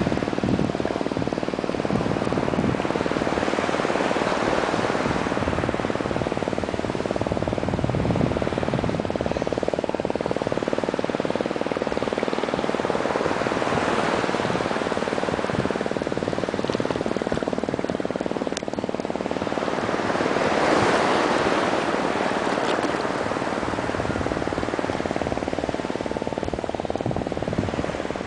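Small waves washing in shallow sea water, a steady rushing that swells and eases every few seconds and is loudest about two-thirds of the way through.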